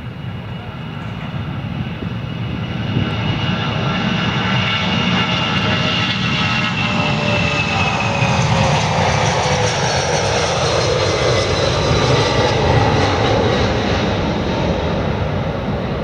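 Boeing 757-232's twin Pratt & Whitney PW2037 turbofans at takeoff thrust as the jet accelerates down the runway, lifts off and climbs away. The engine noise grows louder over the first few seconds and stays loud, while its whine slides down in pitch as the plane passes.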